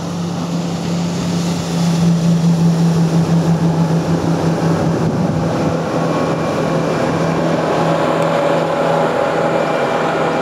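Fast river passenger boat speeding past close by: a steady engine drone that swells for a few seconds, over the rush of water from its spray and wake.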